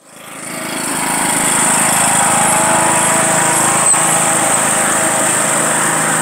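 John Deere riding lawn mower's engine running steadily as the mower drives through mud, fading in over the first second.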